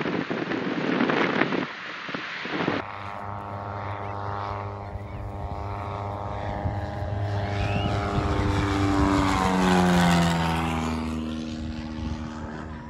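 Wind rushing loudly through an open cabin window of a light plane for the first few seconds. Then a Piper Cherokee's propeller engine passing low overhead: it grows louder, drops in pitch as it goes by about ten seconds in, and fades away.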